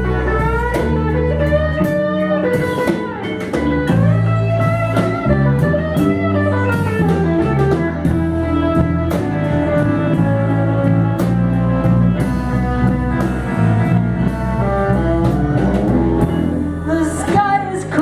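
Live blues band playing: electric guitar with bending notes over bass and drum kit.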